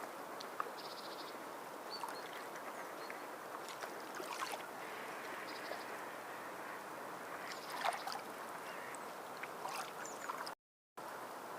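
Water lapping and sloshing steadily, with a few small splashes and a couple of brief high chirps. The sound cuts out for a moment near the end.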